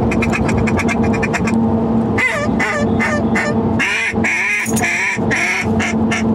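Two mouth-blown duck calls quacking inside a moving truck's cab. A fast run of short chattering notes gives way, about two seconds in, to a series of longer quacks, the loudest near the middle. A steady drone of the truck runs underneath.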